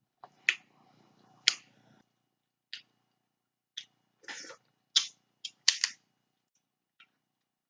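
Eating snow crab legs: a string of irregular, sharp clicks and smacks, about a dozen, with quiet gaps between.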